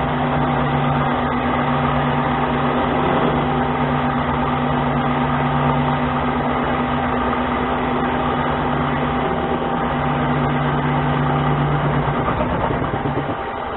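Harbor Freight mini lathe running at about 500 RPM with a steady hum from its motor and drive, while a carbide-tipped tool takes a light cut of about five thousandths on the spinning workpiece. The sound drops a little just before the end.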